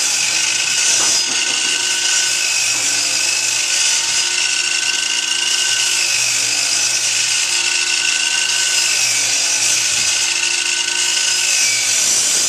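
A chop saw set to a partial depth, running with a steady high whine while it makes a series of shallow cuts into a board. Its pitch sags slightly at times under load.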